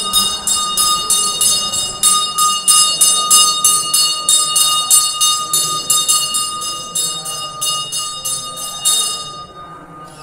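A temple puja bell rings rapidly, with evenly spaced strokes about four or five a second over a steady metallic ring. The ringing fades and stops about nine seconds in.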